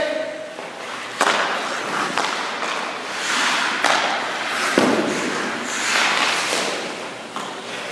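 Ice hockey goaltender's skate blades scraping the ice in repeated pushes and stops, with two sharp knocks, the louder about halfway through as the goalie drops down onto the ice.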